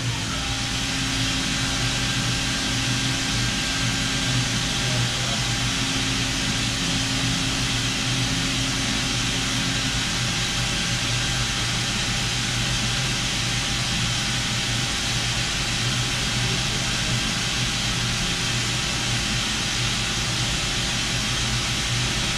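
Doosan DNM 5700 vertical machining center with its spindle running at a steady speed and no cutting: a steady hum with an even hiss over it. A fainter tone in the hum drops out about ten seconds in.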